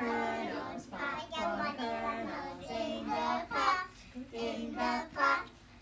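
Young children singing a song together, their voices holding sung notes syllable by syllable, with a short pause about four seconds in.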